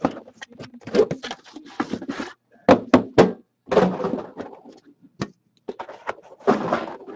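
Handling noise of a black metal card tin, The Cup hockey box, being pulled from its outer box, set on a table and worked open. It makes a rapid series of knocks, clicks and scrapes from the tin and its lid.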